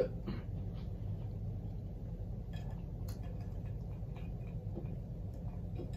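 Steady low background hum, with faint scattered mouth clicks from chewing and from sipping a drink through a straw.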